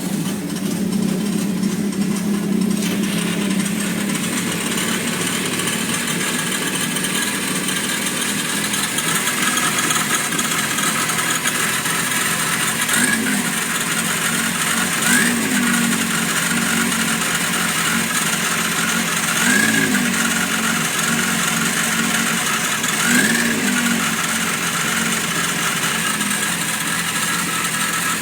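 Yamaha FZR motorcycle engine running at idle just after starting, revved briefly four times in the second half. The squeak the owner is recording runs along with the engine.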